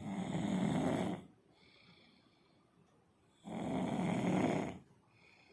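A sleeper snoring: two long, loud snores about three and a half seconds apart, each lasting just over a second, with fainter breath sounds between them.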